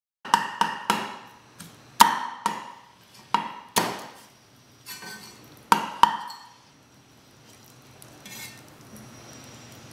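Chinese cleaver chopping through chicken leg bone on a wooden chopping block: about ten sharp chops in the first six seconds, some in quick pairs, each with a short ring. After that only a faint low background noise remains.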